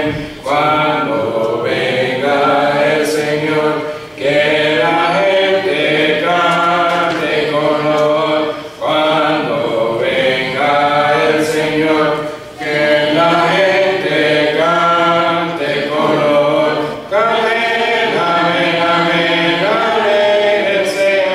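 A church congregation singing a hymn a cappella in parts, with no instruments. The hymn goes phrase by phrase, with a short break for breath about every four seconds.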